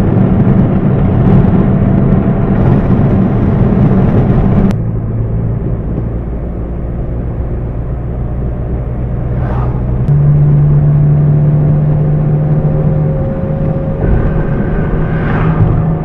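Vehicle engine running steadily under a rushing noise. Its hum changes abruptly and gets quieter about five seconds in, then rises in pitch about ten seconds in.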